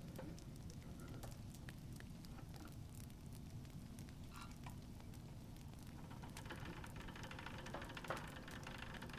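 Wind-up horn gramophone being set going: a steady crackle with scattered light clicks, then thin, faint music from the horn coming in about six and a half seconds in, with a sharper click about eight seconds in.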